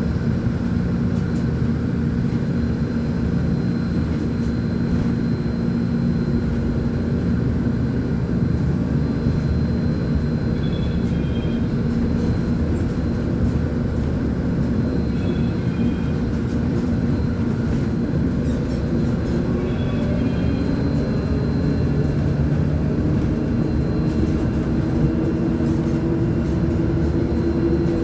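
Volvo B10M articulated bus's six-cylinder diesel engine running steadily under way. Over the last several seconds its note rises in pitch.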